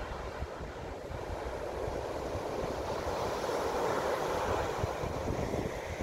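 Ocean waves breaking on a sandy beach, the surf washing in as a steady rush that swells to its loudest around the middle.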